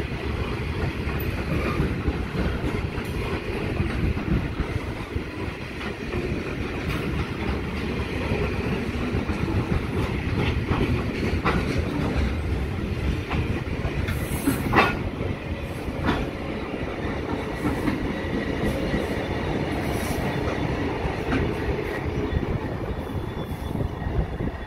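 Coal hopper wagons rolling past with a steady rumble and the clickety-clack of wheels over rail joints, with one sharper clank about fifteen seconds in. Near the end, Pacific National 82 class diesel locomotives pass close by.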